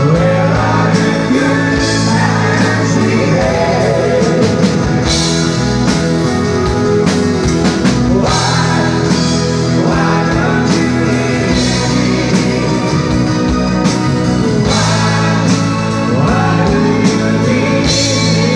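A live rock band playing a song with a male lead singer, guitars, keyboards and drums, loud and continuous.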